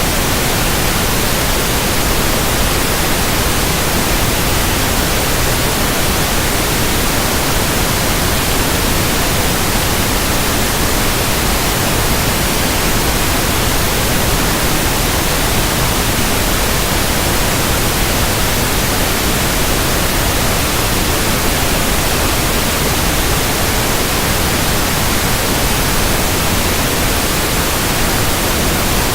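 Pink noise test signal for checking a speaker: a loud, steady, even hiss spread across the whole range, with no change.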